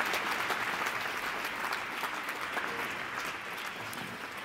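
Large audience applauding, dense clapping that gradually thins and fades.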